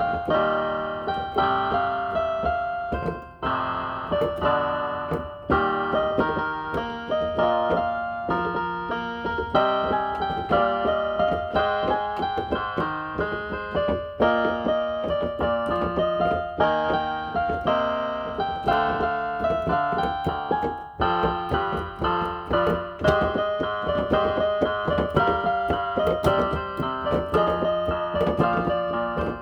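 A budget electronic keyboard played with a piano voice: a continuous run of melody notes over chords, each note striking and fading away.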